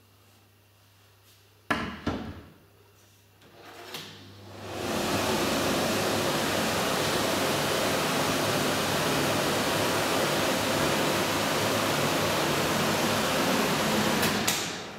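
Slide-out telescopic cooker hood: two sharp clicks, then its extractor fan starts about four seconds in and runs with a steady rush of air. The fan cuts off shortly before the end.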